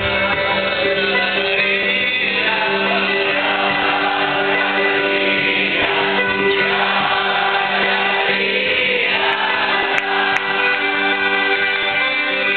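Many voices singing together in a live sing-along, over an accordion and an acoustic guitar holding steady chords.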